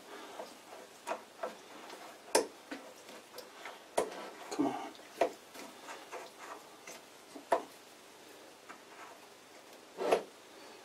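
Oiled tailstock quill being slid into a lathe tailstock's barrel and twisted by hand, metal on metal, with scattered irregular clicks and knocks. A few of the knocks are sharper and louder, the last about ten seconds in.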